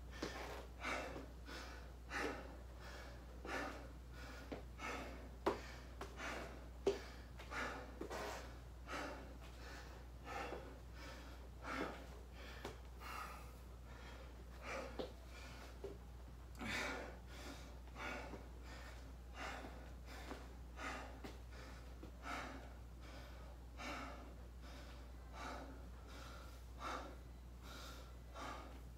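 A man breathing hard and fast, quick regular gasps for breath about three every two seconds with a few sharper ones, as he recovers from calisthenics exercise. A low steady hum runs underneath.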